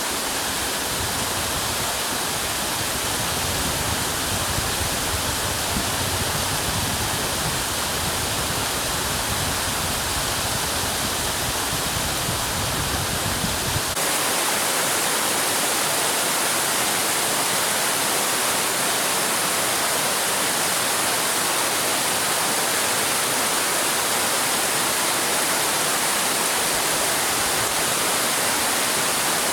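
Spring-fed waterfall, groundwater spilling from the rock, giving a steady rushing hiss. About halfway through the sound changes abruptly: the low rumble drops out and the hiss gets brighter.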